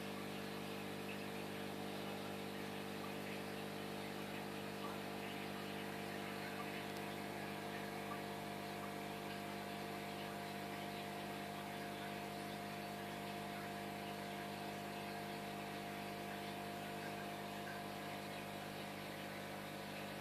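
Steady electrical hum of running aquarium equipment, an air pump and filter, with an even hiss of the rising air bubbles over it.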